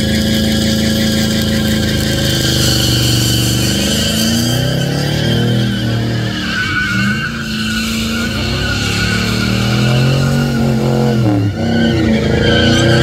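Classic pickup truck doing a burnout: the engine is held at high revs while the rear tyres squeal on the pavement. Partway through, the engine note dips and rises a few times as the throttle is worked.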